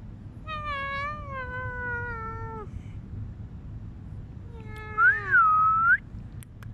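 Cats meowing: one long call that slides slowly down in pitch, then a second, louder call about five seconds in with a high, wavering note.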